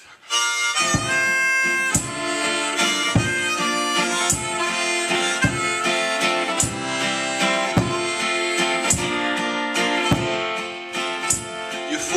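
Harmonica playing held, melodic notes over acoustic guitar in a song's instrumental intro, with a strong beat about once a second.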